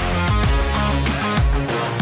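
Background music: a rock-style track with guitar and drum hits.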